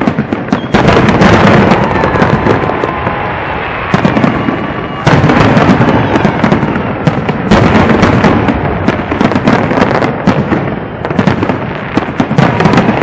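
Aerial fireworks display: shells bursting in a loud, continuous barrage of bangs and crackling, with heavier volleys about a second in and again around five seconds in.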